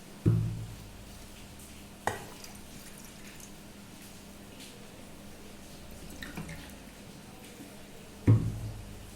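Cupfuls of water tipped into a cooking pan: a few short splashes with a low thud, the strongest about a quarter-second in and near the end, over a faint steady hum.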